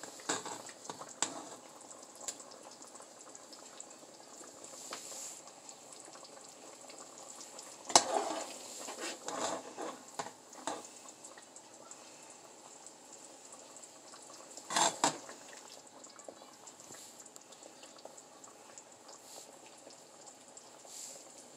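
A metal serving spoon scraping and clinking against a pot as chicken and gravy are scooped out, with louder knocks about eight and fifteen seconds in, over the faint bubbling of the simmering gravy.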